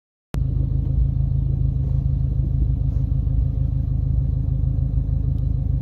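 Steady low rumble with a constant hum, starting abruptly just after the start out of complete silence.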